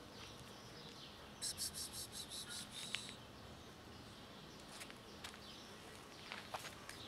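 A small bird's rapid, high chirping trill, about eight notes a second for just over a second, beginning about a second and a half in, followed by a single sharp tick; otherwise faint outdoor ambience with a few small clicks.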